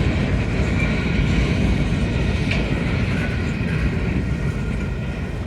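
Train rolling past on the rails, a steady sound of wheels on track that slowly fades.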